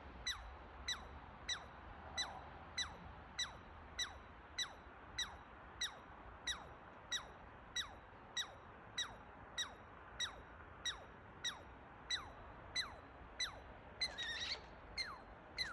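Chipmunk chipping: a steady, even series of short, sharp chips, about three every two seconds, each dropping quickly in pitch. A brief, different wavering call overlaps near the end.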